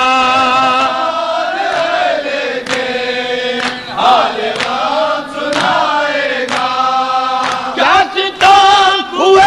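Men's voices chanting a Shia noha in long, drawn-out melodic notes, a lead reciter with others joining. Sharp slaps of matam chest-beating keep time about once a second.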